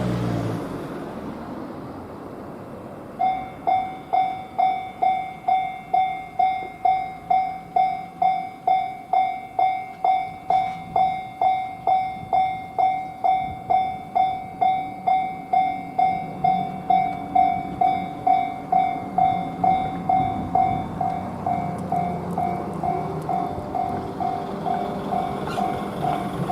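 Japanese railway level-crossing warning bell starting about three seconds in, ringing an even electronic "kan-kan" about twice a second. From about halfway on, an approaching train's low rumble builds underneath it.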